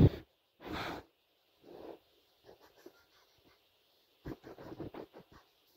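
Hands handling a plastic jar of slime: a short bump at the start and a couple of brief rustles, then a quick run of small sharp plastic clicks about four seconds in as the screw lid is twisted open.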